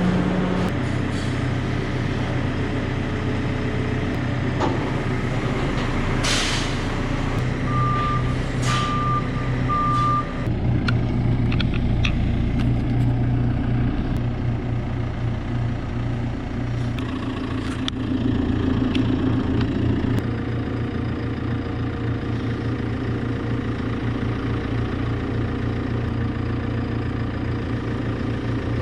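An engine running steadily, with a vehicle's reversing alarm beeping three times, about a second apart, some eight seconds in.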